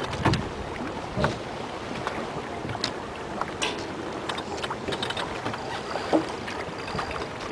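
Steady rush of wind and water aboard a J/35 racing sailboat running downwind, with scattered knocks and clicks from crew and deck gear.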